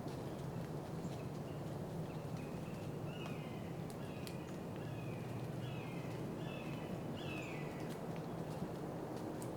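Steady rain noise, with a bird calling in the middle: a run of about half a dozen short notes, each sliding downward in pitch, repeated at a steady pace.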